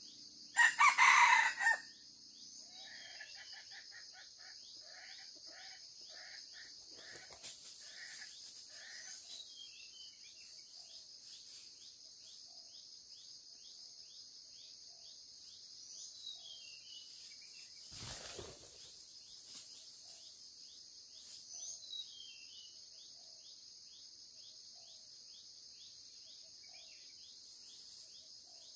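A wild red junglefowl cock crowing once, short and loud, near the start, then a run of clucking calls, about two a second, for several seconds. The cock is caught by the leg in a snare and still crowing. A steady insect buzz runs underneath.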